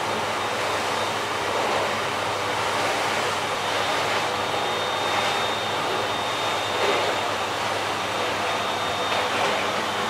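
Bosch BGS21X320 bagless canister vacuum cleaner running steadily: an even rushing of air with a thin high motor whine, swelling slightly now and then as the floor nozzle is pushed back and forth.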